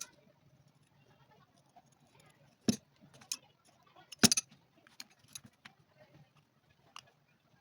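A handful of separate sharp clicks and knocks over a low hum, the loudest two near the middle.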